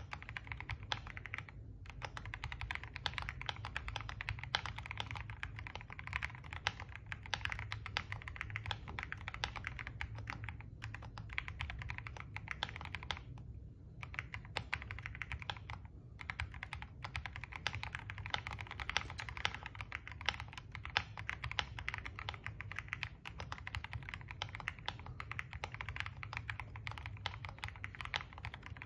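A fast, irregular run of small clicks, with a few short pauses, over a low steady hum.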